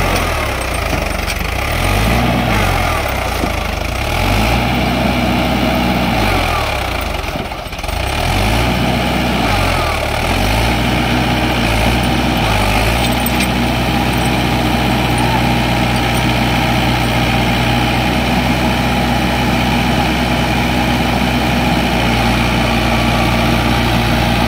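Swaraj tractor's diesel engine revving up and falling back again and again, about every two seconds, then held at a steady, higher speed for the second half. The engine is labouring as the tractor, its rear cage wheels buried in deep paddy-field mud, tries to pull itself free.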